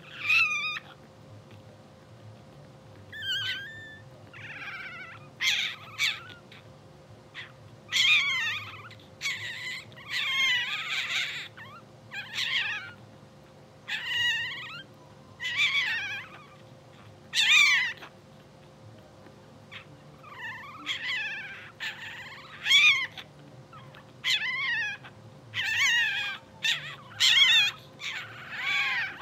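Newborn bulldog puppies squeaking and whimpering: a string of short, high cries, about one a second, many falling in pitch.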